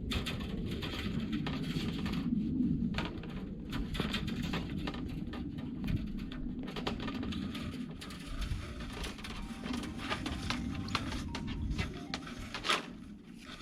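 Brace wire being wrapped around wooden H-brace fence posts, heard as irregular clicks and scrapes of the wire against the posts and itself.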